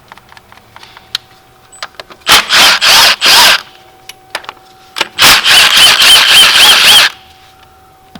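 A cordless power tool runs in two bursts, about a second and then about two seconds long, spinning out the 12 mm AC compressor mounting bolts, with a squealing tone through the second burst. Light metallic clicks of the socket and bolts come between the bursts.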